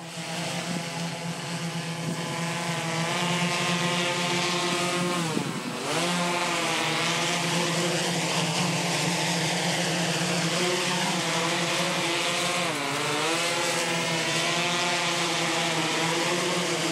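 Heavy-lift multirotor drone's propellers and motors humming in flight on seven motors with one cut out, loaded with about 13.5 lb and barely able to climb. The pitch of the hum dips and comes back up twice, about five and a half and about thirteen seconds in.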